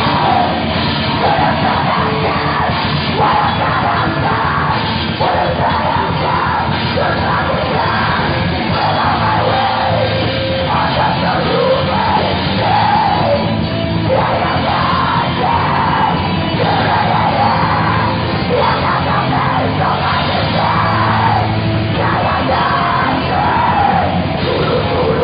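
Heavy metal band playing live, with yelled vocals over the band.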